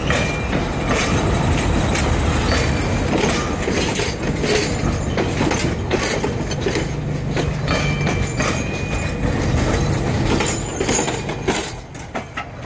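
Stainless-steel passenger railcars rolling past close by. The wheels clack over the rail joints, with a few brief thin squeals, and the noise drops off near the end as the last car goes by.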